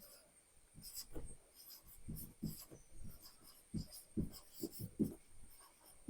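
Faint handwriting: a run of short, irregular writing strokes, about a dozen, growing a little more frequent after about two seconds in.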